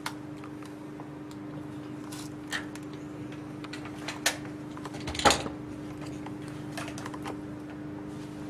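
A few short, sharp clicks and knocks at irregular intervals, the loudest a little past the middle, over a steady low hum.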